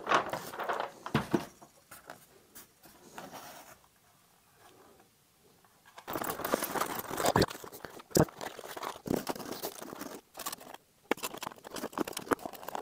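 Hands handling and fitting together the small parts of a model field-railway set: irregular light clicks, rustling and scraping, with a quiet pause of about two seconds a third of the way in.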